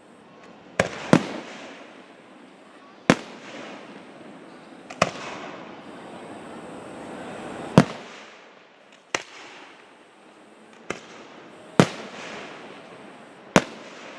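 Aerial fireworks bursting: about nine sharp booms at uneven spacing, one to two seconds apart, over a steady hiss and crackle that swells in the middle.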